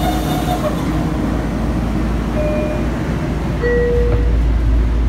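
Steady low rumble of a Long Island Rail Road electric train car standing at the platform, with two falling chime tones a little over a second apart about halfway through, typical of the train's door chime.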